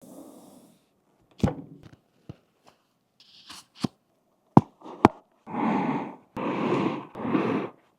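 Parts of a keyboard build being handled by hand: single sharp clicks and knocks, spaced out over the first five seconds, then three longer rustling, scraping sounds near the end.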